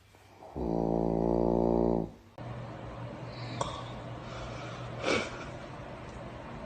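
One long, loud snore with a steady pitch, starting about half a second in and lasting about a second and a half. It then cuts to a steady background hiss with two brief sharp noises.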